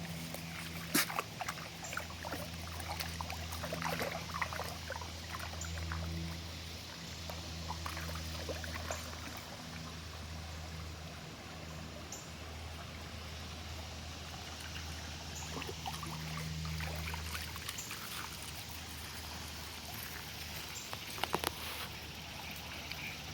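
Steady rush of flowing stream water, with a low steady motor hum underneath that stops about three-quarters of the way through, and scattered light clicks and rustles.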